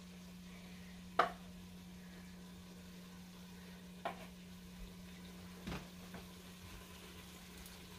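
Light knocks and clatters of cookware and a wooden cutting board being handled at a stove: three short knocks, about a second in, at four seconds and near six seconds, over a steady low hum.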